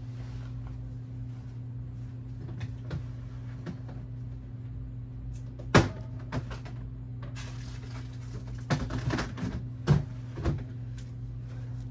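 Steady low room hum with scattered knocks and clicks of someone moving about and handling things out of sight. The sharpest knock comes about six seconds in, and several more follow near the end.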